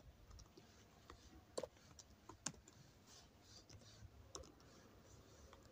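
Faint computer-keyboard typing: a handful of scattered keystrokes, two of them sharper than the rest.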